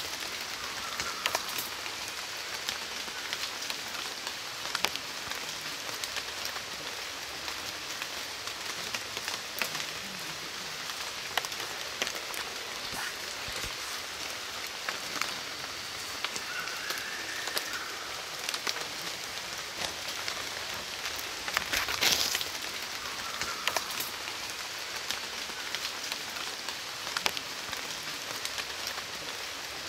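Steady rain patter, an even hiss with many scattered sharp ticks of drops and a louder spell of drops about 22 seconds in. A few faint short calls sound through it.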